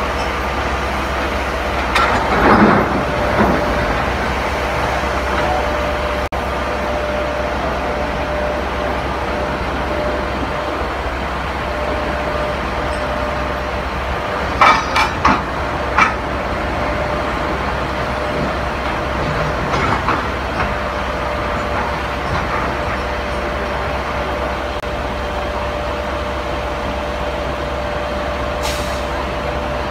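Electric rope shovel and a Caterpillar 777D diesel haul truck working together, a steady heavy machine hum with a constant whine. Clattering knocks about two to three seconds in, three sharp bangs about halfway through and a smaller knock a few seconds later come from rock and the steel dipper striking.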